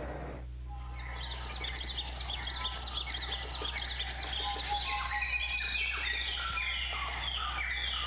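Birds calling in a busy chorus of quick, repeated arching chirps and short whistled notes, starting about a second in, over a low steady hum.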